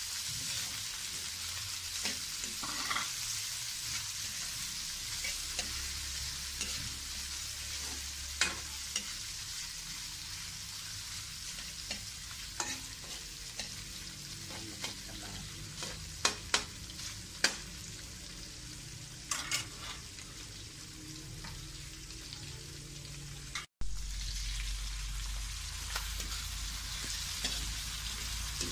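Pork sizzling in hot oil in a metal wok while being stirred with a metal spatula: a steady frying hiss, with a few sharp clinks of the spatula against the wok in the middle.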